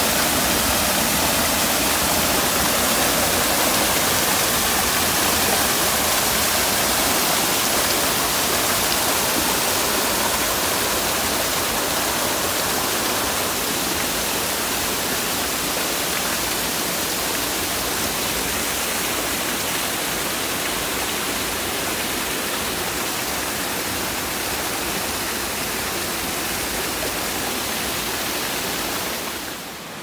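Water in a rocky mountain valley pouring and rushing over falls: a steady, loud rush that eases a little toward the end.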